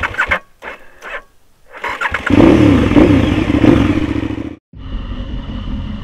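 Motorcycle engine revving, its pitch rising and falling with the throttle, loud for about two seconds before it cuts off abruptly; then a steadier, quieter running sound.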